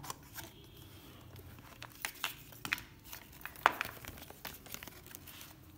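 Cardboard box and folded paper user manual being handled: scattered rustles, crinkles and light clicks as the manual is taken out of the box, with one sharper crackle about two-thirds of the way through.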